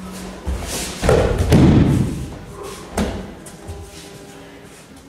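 A thrown aikido student's body hitting a padded dojo mat in a breakfall: a heavy thud with a scuffling roll about a second in, then a single sharp slap on the mat about three seconds in.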